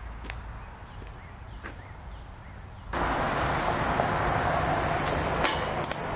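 Quiet outdoor ambience, then from about halfway a louder steady rushing noise as a car drives past on a road. Two sharp clicks near the end.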